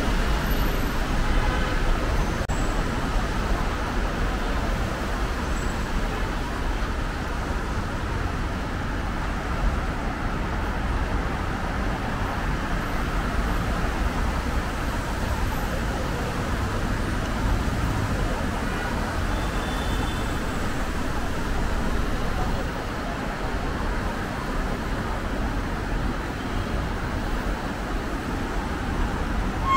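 Steady city road traffic, with cars and motorbikes passing on a multi-lane road and tyres hissing on the wet surface.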